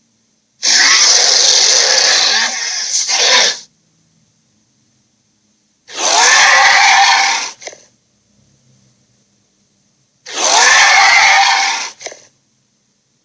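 Dragon sound effect: three loud, raspy roars with silence between them, the first about three seconds long and the next two shorter, about two seconds each.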